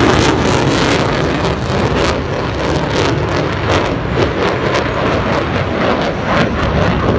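Fighter jet flying past, its loud engine noise thinning out after about two seconds as it moves away, with wind gusting on the microphone.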